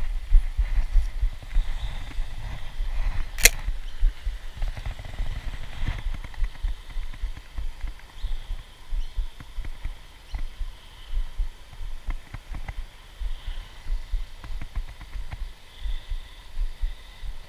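Low, irregular thuds and rumble of noise on the microphone, heavier in the first few seconds, with one sharp click about three and a half seconds in.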